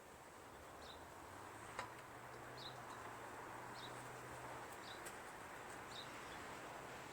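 Faint short high chirps about once a second, typical of a small bird, over quiet room tone, with a single light click about two seconds in.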